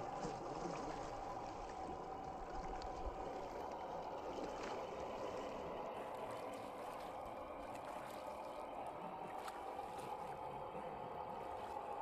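Small 1/10-scale RC Toyota Land Cruiser crawler driving through muddy water, its tyres churning and splashing, with a steady whine from its electric motor.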